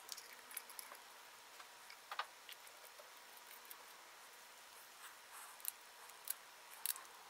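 Faint scattered metallic clicks and ticks of a small wrench and parts against a Briggs & Stratton carburetor's float bowl as the main jet is threaded in and snugged down. There is one click about two seconds in and a few more close together near the end.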